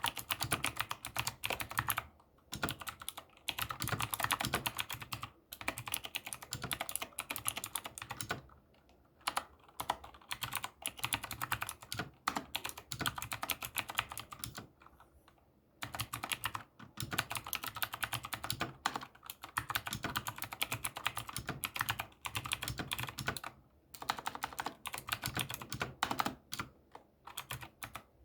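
ZIYOULANG K68 mechanical keyboard fitted with clicky Drinkey Blue switches being typed on fast, a dense run of sharp key clicks. The typing breaks off briefly about 9, 15 and 24 seconds in.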